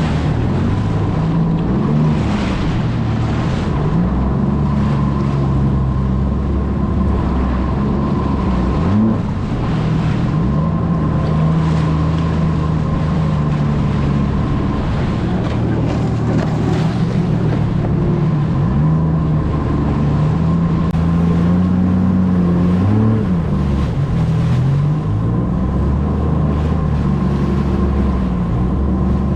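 Jet ski engine running under way, its pitch repeatedly rising and falling as the throttle changes, with a steady high whine over a constant rush of wind and water.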